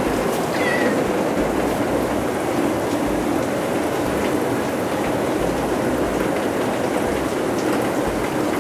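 Heavy downpour of rain, a steady dense hiss throughout, with a cat giving one short, high meow about half a second in.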